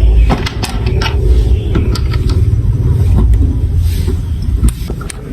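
Marbles rolling along a plastic building-block marble run track: a steady low rumble with frequent sharp clicks as marbles knock against the track pieces.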